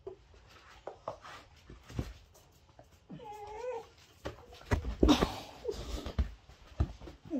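Dogs playing and tussling over a toy: a short wavering cry about three seconds in, then a run of thumps and scuffling near the end.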